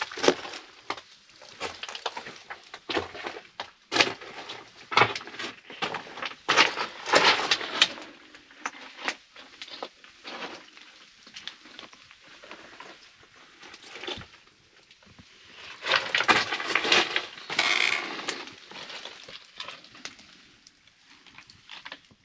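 Footsteps and scrambling over loose stone rubble and gravel: irregular crunches with small stones clattering, busiest about seven and seventeen seconds in.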